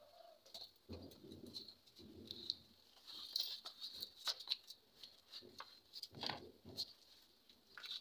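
Faint cooing of doves, with scattered light clicks and ticks, busiest in the middle.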